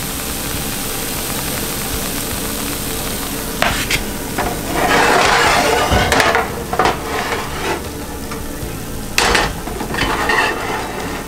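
Sauce sizzling in a small frying pan on an electric coil burner while a wooden spatula stirs and scrapes it. The hissing swells louder around the middle, and several knocks of the pan and spatula come through, the sharpest about nine seconds in.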